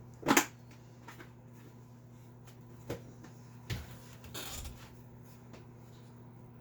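Hands working on an opened Commodore 64 motherboard to get at the VIC chip: a sharp click about a third of a second in, two lighter clicks later, and a short rustle, over a steady low hum.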